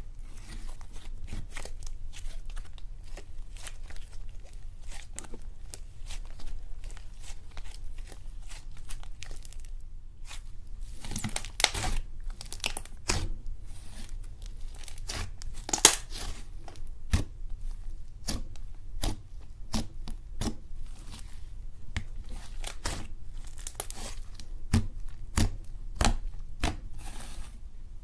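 Thick slime being kneaded, folded and stretched by hand as two colours are mixed together, giving a dense run of small crackles, pops and tearing sounds as it pulls apart. The loudest pops come about halfway through and again near the end.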